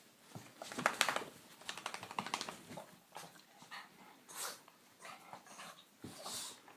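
A pet animal just woken from sleep making two short rattling, snort-like grunts about one and two seconds in, then two breathy sniffs or exhales.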